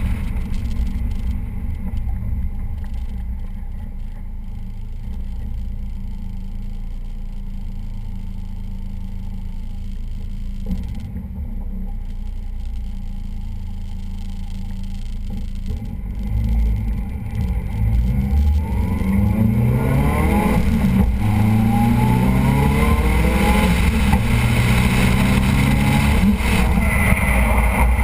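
Car engine on a track run, heard from outside the driver's window. It holds a low, steady note for about the first half, then revs hard, rising and falling again and again, and gets louder through the second half.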